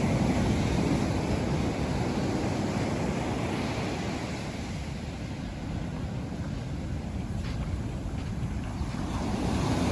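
Ocean waves washing on a beach, with wind rumbling on the microphone. The wash is loudest at the start, eases off through the middle and swells again near the end.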